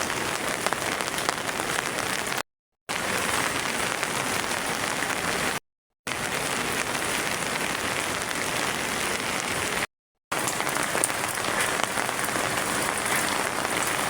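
Steady hiss of heavy rain falling, broken three times by brief dead-silent gaps.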